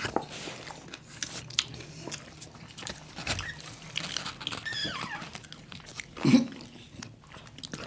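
Close-up mouth sounds of people eating: chewing and crackling bites into puffed fuchka (pani puri) shells and sips from a juice carton, with a falling squeak about five seconds in and a louder short noise about a second later.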